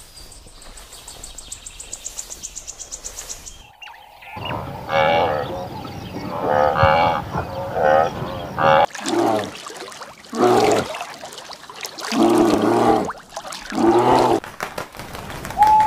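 A series of animal calls. After a faint start, pitched calls come in about four seconds in, then several lower, longer calls follow from about nine seconds on.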